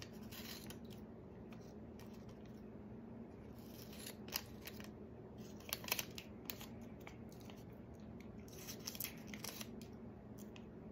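Scissors cutting through a heat-embossed magazine page in several short bursts of snips, with light paper crinkling; the sharpest cuts come about four and six seconds in.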